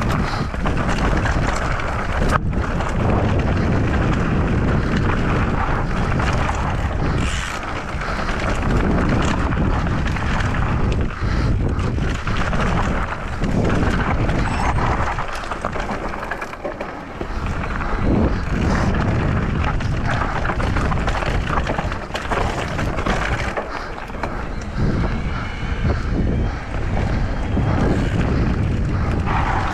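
Mondraker Crafty Carbon XR electric mountain bike descending a loose, rocky dirt trail at speed: continuous tyre noise on gravel and the rattle of the bike over bumps, with frequent sharp knocks. Heavy wind buffeting on the microphone.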